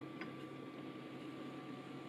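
Quiet kitchen room tone with a faint steady hum and one small tick shortly after the start.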